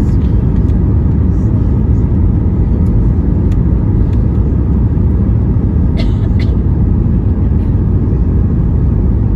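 Steady low roar inside a jet airliner's cabin on final approach with flaps extended: engine and airflow noise heard from a window seat over the wing. A couple of brief clicks sound about six seconds in.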